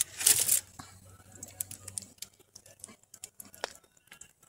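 Wood fire crackling, with sharp irregular pops and snaps. A short, loud rustle comes about a quarter of a second in.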